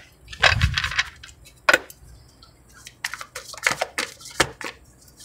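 Tarot deck shuffled by hand: a burst of riffling cards with a soft thump about half a second in, a sharp tap just before two seconds, then a run of quick card snaps and clicks in the second half.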